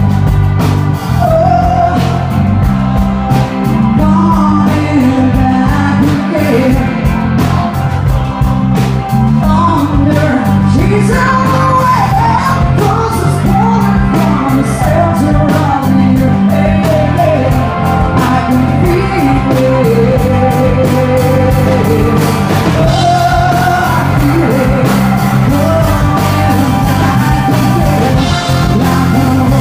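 Live rock band playing loud and steady, with drums, bass and guitars under a female singer's wordless vocal runs that glide up and down.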